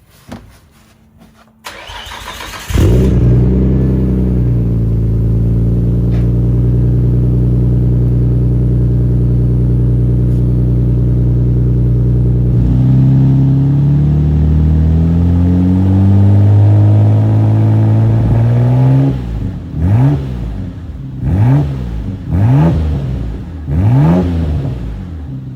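Nissan Skyline GT-R R33's RB26 twin-turbo straight-six, freshly fitted with a Tomei titanium exhaust with the stock cat still in place, cranked and fired up about two seconds in. It idles high and steady, the idle drops lower about halfway through, then it is blipped four times near the end, each rev rising and falling quickly.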